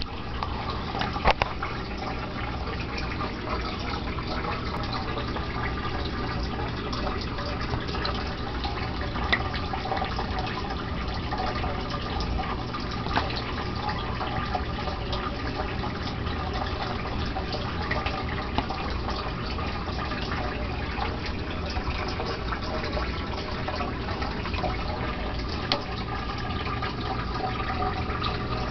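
Steady running, splashing water in a turtle aquarium, with a few sharp clicks through it.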